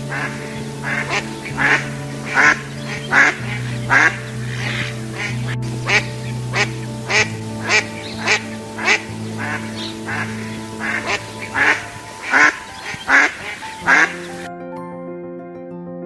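Ducks quacking over and over, about once or twice a second, with background music; the quacking stops near the end and the music carries on alone.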